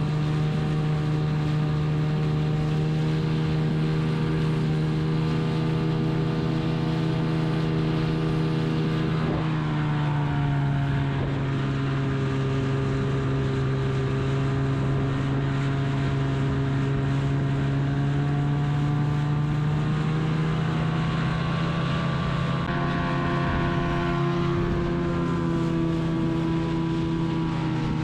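Boat motor running steadily under way, with wind on the microphone. The engine's pitch dips about a third of the way in, then steps up again near the end as the throttle changes.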